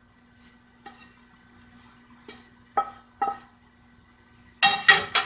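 A kitchen utensil clinking and scraping against dishes while shredded chicken is served onto bread. A few light taps come first, then a louder run of ringing clinks near the end.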